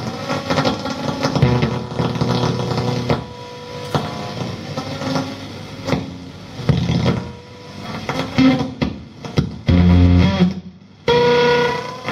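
Electric guitar played live through an amplifier: loose, irregular notes and held chords. A loud low chord comes about ten seconds in, followed by a short break and a sharp new note.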